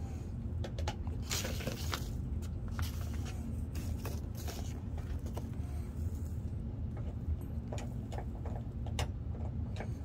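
Paper and packing peanuts rustling and crackling in short bursts as a shipping box is unpacked by hand, over a steady low hum.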